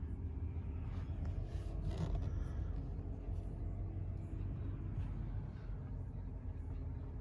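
Dodge Ram 2500's 5.7 L Hemi V8 idling steadily, a low even hum.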